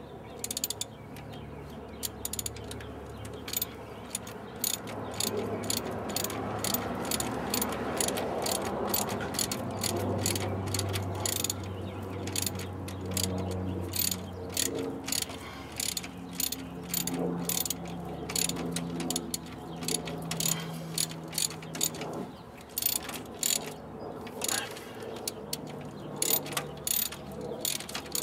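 Hand ratchet wrench clicking in quick runs as it is worked back and forth on a bolt, with short pauses between the runs.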